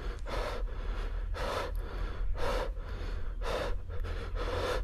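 A person breathing heavily and panting close to the microphone, one rough breath about every second. A low steady hum runs underneath.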